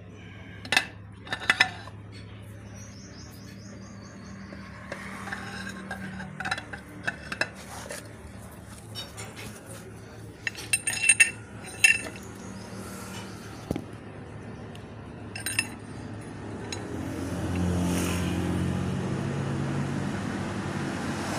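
Scattered metal clinks and taps of tractor steering-box parts being handled: steel worm shaft, ball race and loose steel bearing balls against the cast-iron housing, with a quick run of clinks about halfway through. A steady low rumble swells up near the end.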